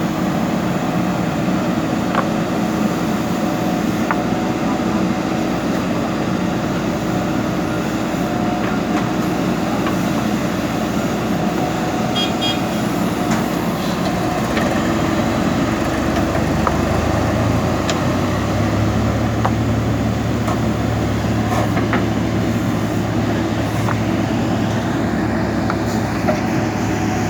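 Diesel engine of a JCB backhoe loader running steadily at work, with a few light clanks; about two-thirds of the way through, a lower, deeper drone sets in.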